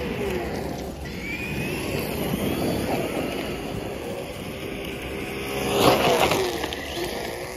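Traxxas electric RC monster truck with a brushless motor, running flat out in a drag race. Its motor whine and tyre noise build as it approaches, are loudest as it speeds past close by about six seconds in, and then drop in pitch as it goes away.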